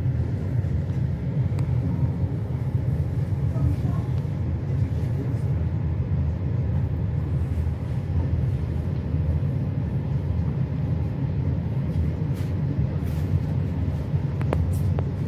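Steady low rumble of a passenger train running at speed, heard from inside the carriage, with a few faint ticks near the end.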